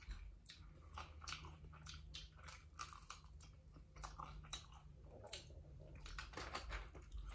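Two people biting and chewing fried chicken wings: many small irregular clicks of mouth and teeth, faint, over a steady low hum.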